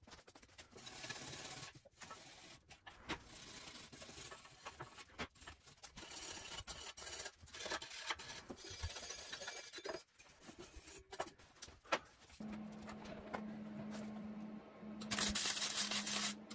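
Steel frame tubes being handled and fitted, with irregular rubbing, scraping and light knocks; about three-quarters of the way in a steady hum starts, and near the end a welding arc crackles and hisses for about a second and a half, the loudest sound.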